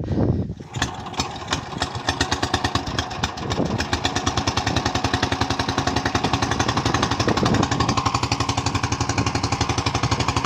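Small boat engine starts up and runs with a rapid, even chugging, driving its propeller inside a wooden box to push water into a fishpond.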